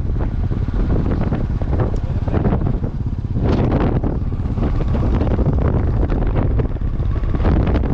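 Wind buffeting the microphone of a camera on a moving motorcycle at road speed, a loud rumbling rush that surges unevenly.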